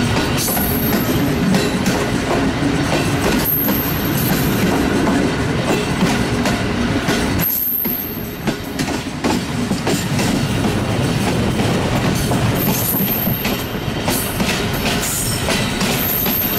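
Passenger coach wheels running over the rails, heard from the open doorway of a moving express train: a steady rumble and clatter with clicks from the rail joints.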